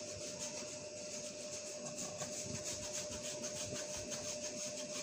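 Steady hiss with a faint constant hum underneath: kitchen room tone, with a few soft handling sounds of vegetable strips being placed on buns in a metal baking tray.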